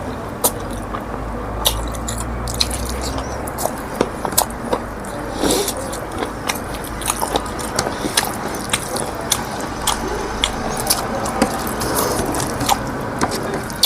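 A person chewing and biting food close to the microphone, with many short, wet mouth clicks and smacks; the food is pig-head pork eaten with rice and eromba.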